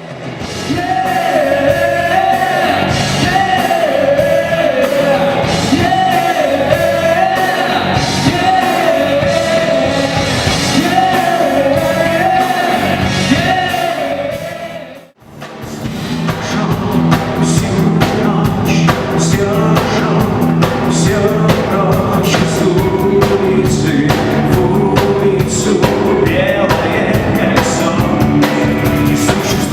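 Band music with singing, loud and continuous. It drops out briefly about halfway through and gives way to a different song.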